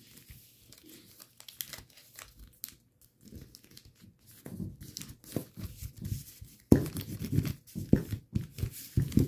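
A sheet of origami paper rustling and crinkling as it is handled and folded, with short sharp creasing sounds; busier and louder in the second half.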